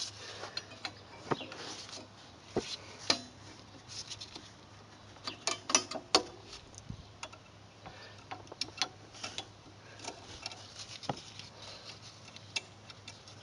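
Irregular light metallic clicks and clinks as a spring and other hardware are worked loose by hand on the rear drum brake of a 2003 Honda Civic, busiest about five to six seconds in.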